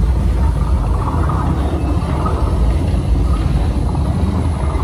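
Studio Tram Tour ride tram rolling along, a steady low rumble.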